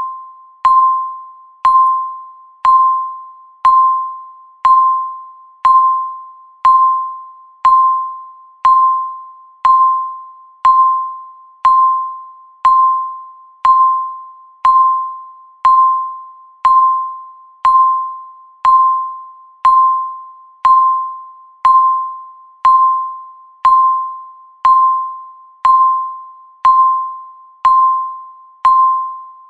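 Countdown timer beeping once a second: a short electronic beep at one steady mid pitch, each one starting sharply and fading out before the next.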